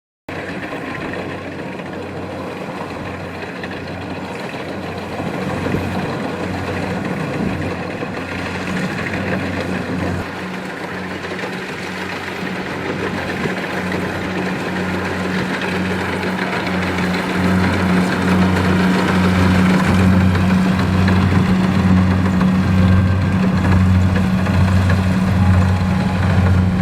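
Kubota DC-70 combine harvester running, its diesel engine droning with a pulsing low throb under the clatter of the machine, growing steadily louder.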